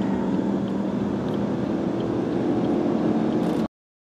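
Lockheed U-2 jet flying low overhead, its jet engine a steady rush over a low hum. The sound cuts off suddenly near the end.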